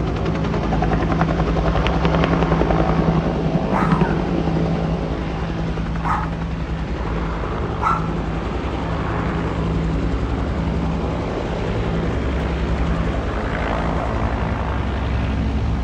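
Helicopter rotor beating steadily as a low pulsing drone. Three short sharp sounds come about two seconds apart in the middle.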